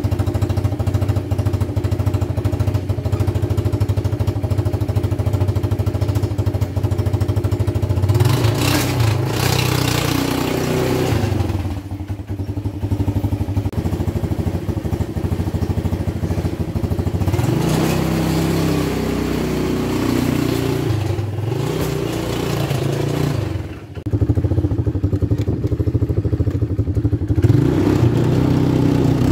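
ATV engine idling steadily for several seconds, then revved up and down a few times as the quad is ridden off at low speed, with a brief drop about three-quarters of the way through before it picks up again.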